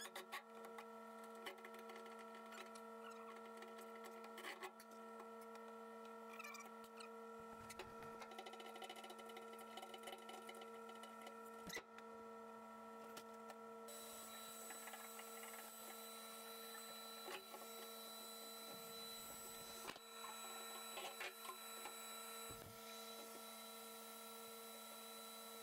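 Faint steady hum of several even tones, with a few light clicks and knocks over it.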